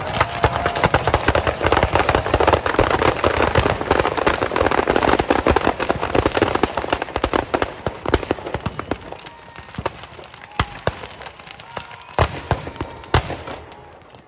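Firecrackers packed inside a burning Dussehra effigy going off in a dense, rapid crackle. After about eight seconds it thins to scattered single bangs, a few of them loud.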